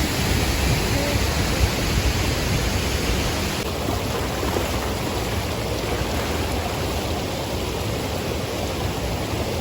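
Steady rushing noise of a waterfall close by, even throughout, easing slightly in its higher part about three and a half seconds in.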